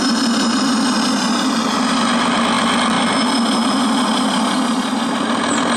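Recorded diesel locomotive engine sound played through the loudspeaker of a homemade digital sound unit, winding down from full revs to notch two: the pitch eases down a little, then holds steady.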